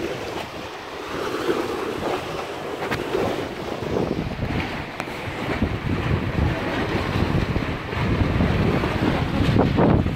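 Wind buffeting the microphone over sea water washing against a concrete jetty; the low wind rumble grows heavier over the second half.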